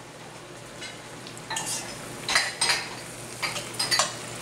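Braised greens sizzling gently in olive oil in an enameled cast-iron pot, with several sharp clinks and scrapes of utensils against the pot as they are stirred and tossed.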